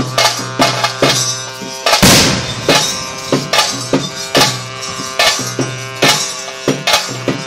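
Live music accompanying a bhuta kola ritual dance: drums struck in a steady beat of about two strokes a second over sustained held tones, with a brief crash of noise about two seconds in.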